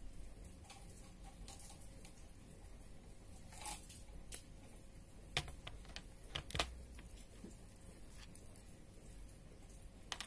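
Faint, scattered small clicks and light metallic ticks from jewellery pliers working tiny metal pins and chain links. Near the end there is a light clack as the pliers are set down on a plastic tray.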